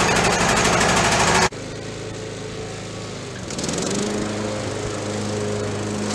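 Riding lawn mower engine running. It is loud and close at first, then after a sudden cut about a second and a half in it is heard farther off and steadier as the mower drives across a lawn. Its pitch rises around four seconds in. Freshly fitted with a new air filter to stop it bogging down, it keeps running.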